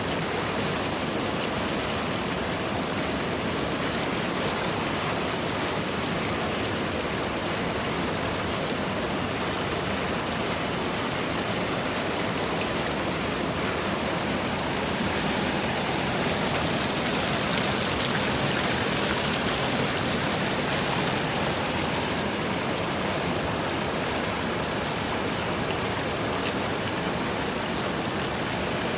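Steady rush of flowing water, swelling slightly about halfway through, with a few faint ticks.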